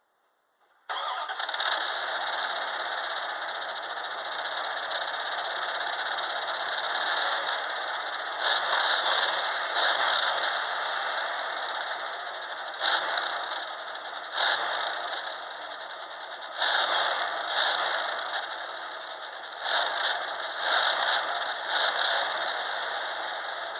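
A Dodge engine starts about a second in and idles steadily, then is revved in a series of short blips from about eight seconds on. It is being run to check the exhaust for a possible clogged catalytic converter or muffler.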